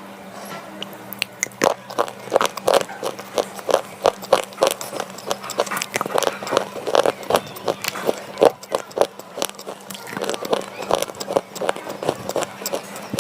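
Slate pencil being bitten and chewed: a dense run of sharp, dry crunches, several a second.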